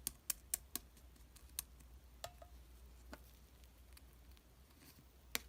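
Slime being pressed and worked by hand, making sharp clicking pops: a quick run of about four in the first second, a few scattered ones after, and the loudest near the end.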